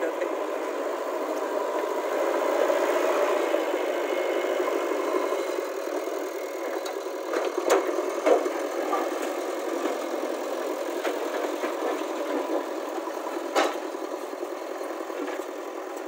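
JCB 3DX backhoe loader's diesel engine running steadily under load as its front bucket cuts and pushes soil, with a few sharp knocks, the loudest about eight seconds in and again near fourteen seconds.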